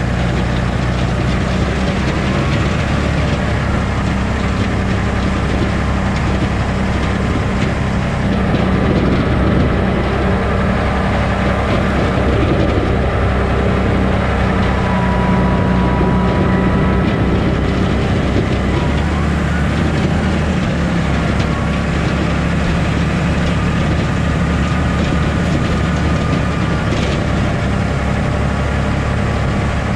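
Valtra T174D tractor's six-cylinder diesel engine running steadily under load as the tractor drives with its front snow plough.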